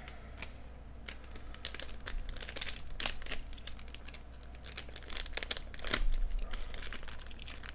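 Plastic wrapper of a hockey card value-bundle pack crinkling and crackling as it is handled and torn open, loudest about three and six seconds in.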